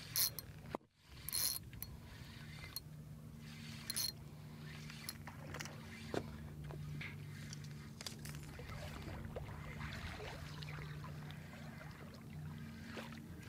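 Spinning reel being cranked as a hooked fish is fought and reeled in, with scattered clicks from the reel and rod, over a steady low hum.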